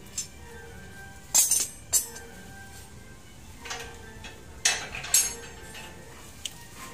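Steel rebar clinking against a hand bending tool and jig as stirrups are bent by hand: a string of sharp metal strikes at uneven intervals, the loudest about one and a half, two and five seconds in. Faint background music runs underneath.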